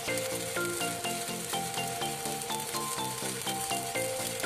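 Electric arc welding on a steel loader bucket: the arc crackles and sizzles steadily as the bead is run. Background music with a stepping, repeating melody plays along with it.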